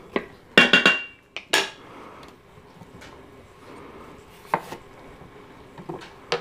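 A wooden spatula clatters against the Instant Pot's stainless steel inner pot in a few loud knocks during the first second and a half, with a brief metallic ring. Then come a few soft knocks of a knife cutting potatoes on a cutting board near the end.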